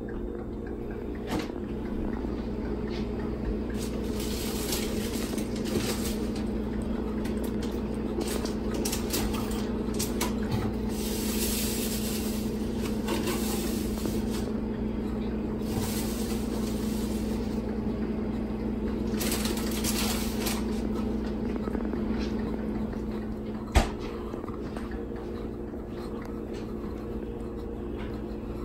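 A cat licking out a small food cup on a laminate floor, with irregular light clicks and scrapes as its tongue and nose work the cup along, over a steady low hum. One sharp knock comes near the end.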